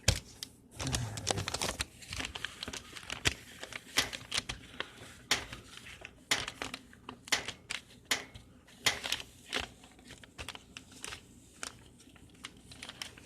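Hands crinkling and rustling paper or packaging, with irregular sharp clicks and taps scattered throughout.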